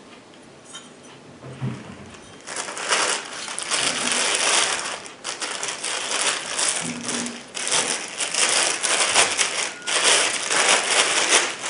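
Clear plastic bag crinkling and rustling as a rifle scope is worked out of it by hand, starting a couple of seconds in and going on in several long bursts with brief pauses.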